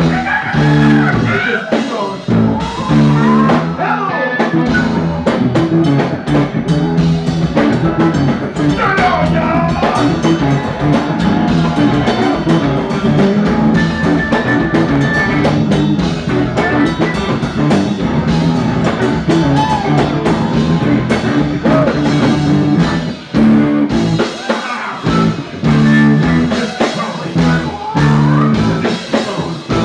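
Live funk band playing: electric guitar, bass guitar, drum kit and organ together in a steady groove, with some voice over the top.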